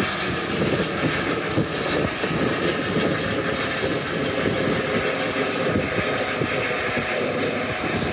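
Airbus H145 helicopter climbing away overhead just after takeoff: the steady, loud rush of its main rotor and twin turbine engines.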